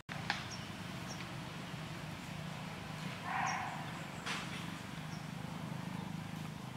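Outdoor ambience among grazing deer: a low steady hum, a few faint high bird chirps and a couple of sharp clicks, with a short breathy rasp about three seconds in.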